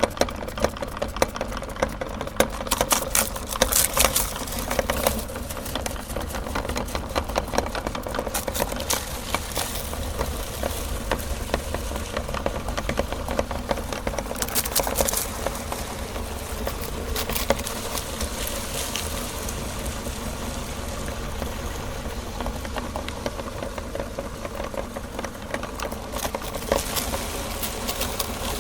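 Electric meat grinder running steadily, its motor humming under rapid clicking and crackling from the auger and cutting plate. The clicking comes thicker in a few spells, early on and again about halfway through.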